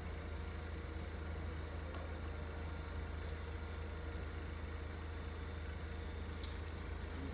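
Forklift engine idling: a steady low hum.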